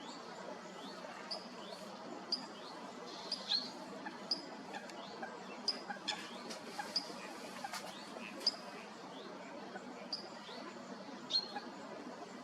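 Great crested grebe chicks calling: repeated short, high piping calls, one or two a second, some with a quick upward slide, over a steady background hiss.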